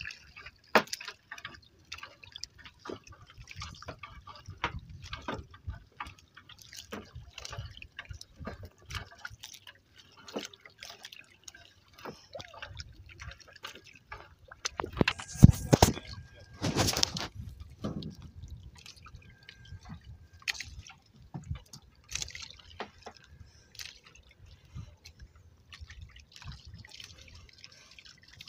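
Water dripping and splashing from a fishing net as it is hauled aboard, with scattered small taps and knocks. Two louder hits come just past halfway.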